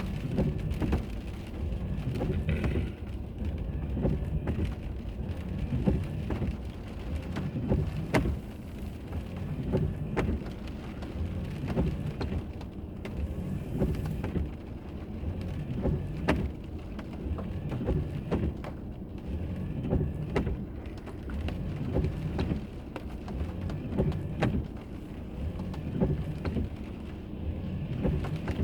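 Road noise inside a moving car, picked up by a dash camera: a steady low rumble with scattered, irregular sharp ticks and knocks.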